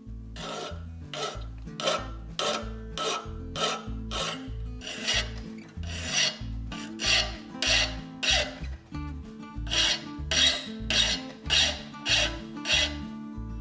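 Hand file rasping across a steel knife blank of old trailer leaf spring clamped in a vise, in even strokes about two a second, shaping the blade, bolster and tang.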